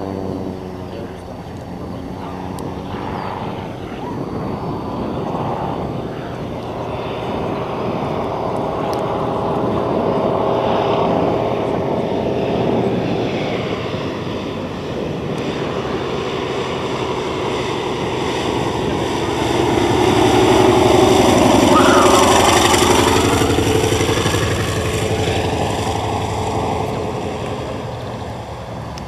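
Antonov An-2 biplane's nine-cylinder radial engine and propeller droning steadily in flight. It grows loudest a little past the middle as the plane comes close, then fades as it comes in to land.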